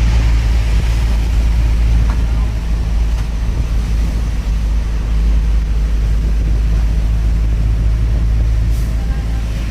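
Bus riding along a highway, heard from inside: a steady deep rumble of engine and road noise.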